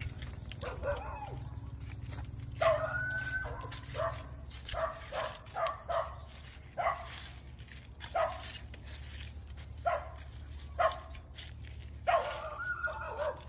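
An animal giving short, repeated calls, about a dozen at irregular intervals of roughly a second, over a steady low rumble.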